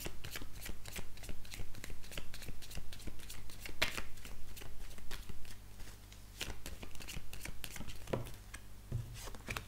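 A deck of oracle cards being shuffled by hand: a fast run of light card slaps and flicks, thinning out in the later seconds.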